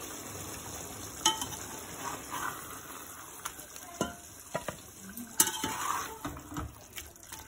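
Chicken masala sizzling in a metal pot, fried until the oil has separated, while a metal spoon stirs it. Every second or so the spoon knocks or scrapes against the pot.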